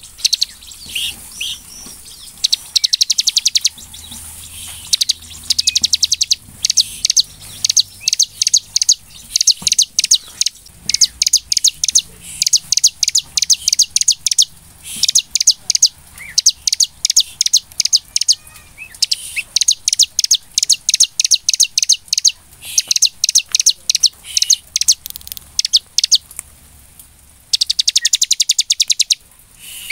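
Bar-winged prinia (ciblek) singing in full voice: rapid trills of sharp, high notes, each lasting a second or so, repeated over and over with short pauses between them.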